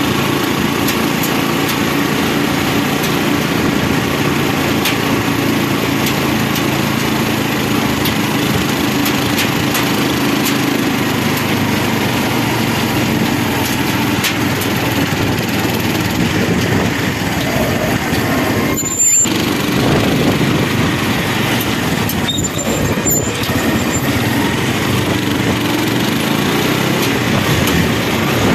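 A small engine running steadily under a moving vehicle, with the sound cutting out briefly twice about two-thirds of the way in.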